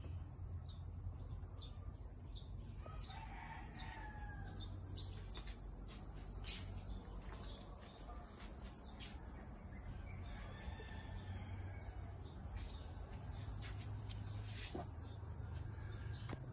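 Rooster crowing faintly, twice: once a few seconds in and again past the middle, each call about a second long, over a steady low hum.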